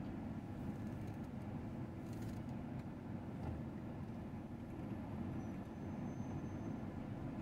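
Fire truck's diesel engine running, a steady low rumble.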